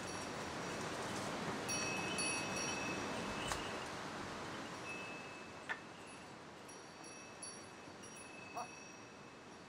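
Small bells on walking pack animals, jingling on and off in clusters of clear ringing notes, over a steady rushing background that eases after the middle.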